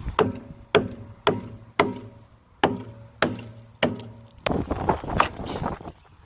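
About nine heavy blows on the steel tank of a water heater, roughly one every two-thirds of a second, each leaving a brief metallic ring.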